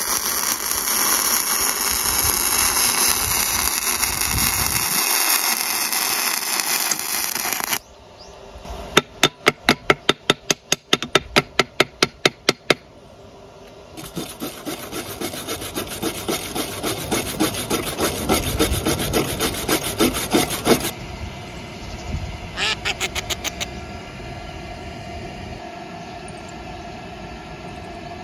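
Gasless flux-core MIG welding arc from an EENOUR MIG120L inverter welder, a loud steady crackle lasting about eight seconds and then cutting off. After that a run of sharp taps on the steel plate for about four seconds, rhythmic scraping for about seven seconds, and a few more quick taps near the end.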